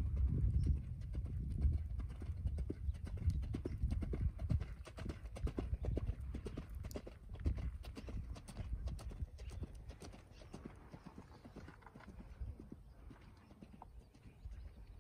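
Rapid hoofbeats of a ridden horse moving briskly along a sand arena track, a quick run of strikes and dull thuds that fades as the horse moves away in the last few seconds.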